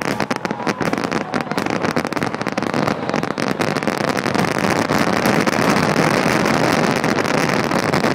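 Aerial fireworks barrage: many shells bursting in quick succession, the rapid bangs thickening about halfway into one continuous rumble.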